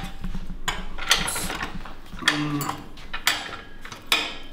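Titanium tube pieces and a small bench vise being handled on a welding table: a series of about five sharp knocks and clatters.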